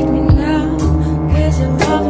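Recorded music playing an instrumental stretch: held melodic notes over a beat, with sharp drum hits about a third of a second in and near the end.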